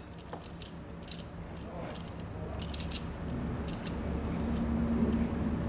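Small clicks and rattles of a plastic plug and its brass screw terminals being handled while wires are fitted into it, over a low rumble that grows louder toward the end.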